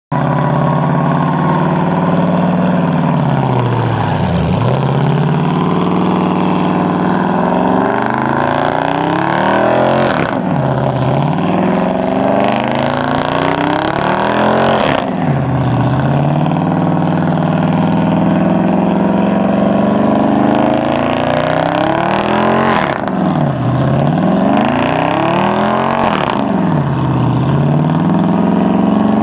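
Dodge Charger Daytona's HEMI V8 held at high revs during a burnout, the revs dropping and climbing back about five times, with the spinning rear tyres screeching in several stretches.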